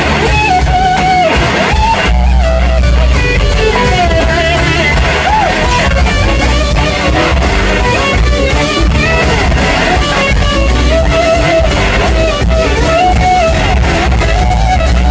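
A blues-rock band playing live through a PA, heard from among the audience: an electric guitar lead with bending, sliding notes over heavy bass and steady drums.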